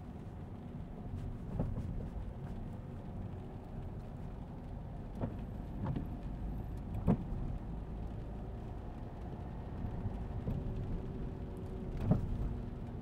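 A car's engine running and its road rumble, heard from inside the cabin while it drives along, with a few short knocks and clicks scattered through.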